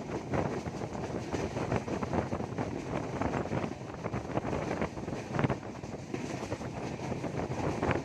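Superfast express passenger train running at speed, its steel wheels clattering and knocking over rail joints and points, with wind noise on the microphone. One louder knock about five and a half seconds in.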